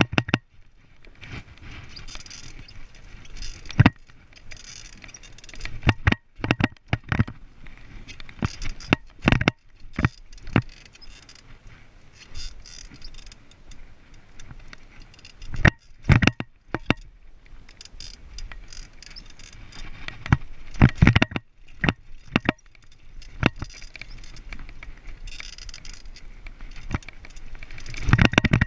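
2014 Devinci Jackson mountain bike rattling and clattering as it is ridden over wooden skinnies, rocks and gravel: irregular sharp knocks and jangling from the chain and frame over a steady rush of tyre noise.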